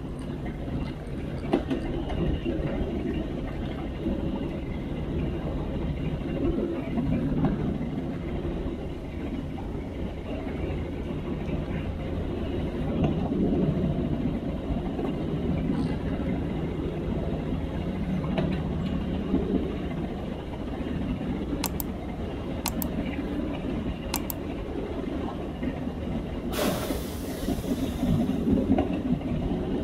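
LXD2 narrow-gauge diesel locomotive running along the track, a steady rumble of engine and wheels on rail. Near the end, a loud hiss lasts about a second and a half.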